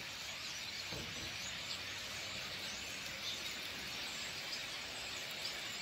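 Steady, faint open-air background noise with a few faint bird chirps.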